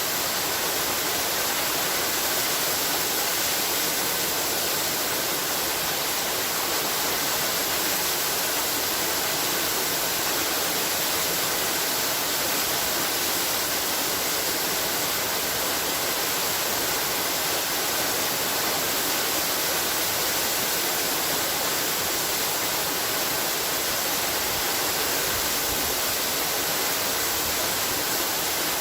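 Waterfall rushing steadily: an even, unbroken hiss of falling water, bright and with little deep rumble.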